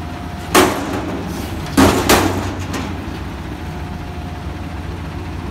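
Front-loader garbage truck emptying a commercial dumpster over its cab: three loud metal bangs as the bin is shaken at the top of the lift, one about half a second in and two close together near two seconds, over the steady running of the truck's engine.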